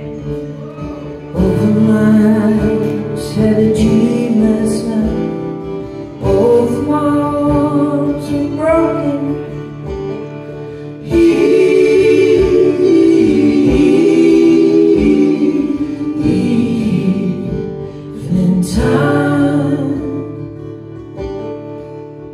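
Live acoustic band playing a song: singing in phrases with gaps between them, over strummed acoustic guitars, bass guitar and a small drum kit.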